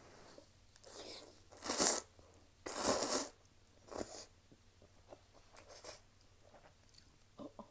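A person slurping ramen noodles: four noisy slurps in the first half, the loudest about two seconds in and the longest near three seconds. Quieter chewing clicks follow.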